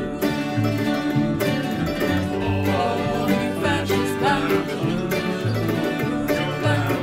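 Folk band playing an upbeat country-style song in a steady rhythm: strummed acoustic guitar, mandolin, electric guitar and electric bass together.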